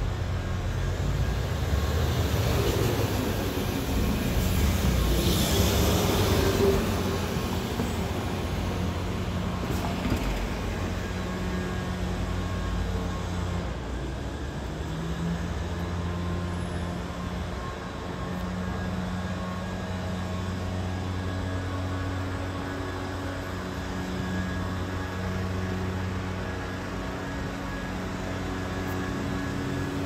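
Vehicle engine noise: a steady low hum that swells louder for several seconds near the start, as of a vehicle passing close by, then settles back to a steady hum.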